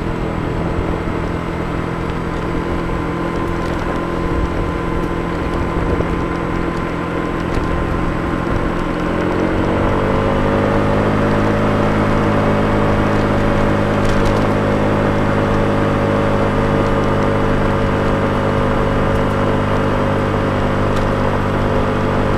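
Small motor scooter engine running under way, its pitch rising about halfway through as it speeds up, then holding steady at the higher speed.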